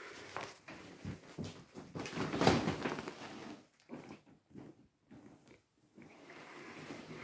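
Rustling and knocking as a mattress is lifted off a wooden bed base, in an irregular run of scrapes and bumps that is loudest about two and a half seconds in.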